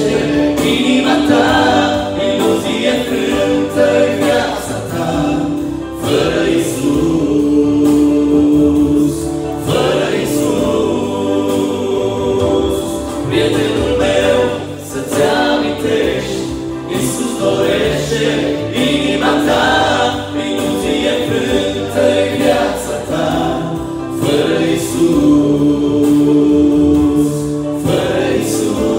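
Three men singing a Christian song together in harmony through microphones, backed by an arranger keyboard with a steady beat and an acoustic guitar.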